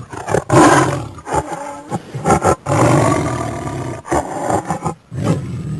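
Lion roaring and growling in a series of loud, rough calls, the longest held for over a second.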